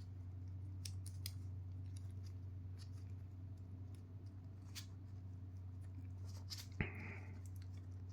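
Small plastic miniature parts being handled and pressed together: scattered light clicks, then one sharp snap about two-thirds of the way in as a push-fit piece seats.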